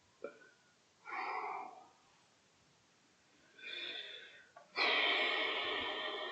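A man's breathing close to the microphone: a short puff, two breaths, then a louder, longer breath for the last second and a half that stops abruptly.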